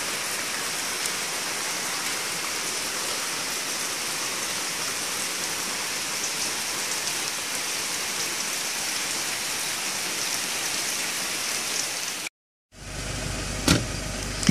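Heavy rain falling steadily, a dense even hiss that stops abruptly about twelve seconds in. It gives way to a quieter outdoor background with a sharp click near the end.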